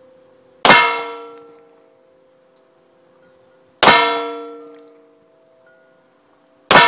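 Three pistol shots about three seconds apart, firing a test load of 4.9 grains of 700X powder through a chronograph. Each shot is followed by a long metallic ring that dies away over about a second and a half.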